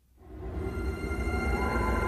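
Soundtrack music rising out of near silence within the first half second, with a deep low rumble under several sustained high tones and one tone slowly rising.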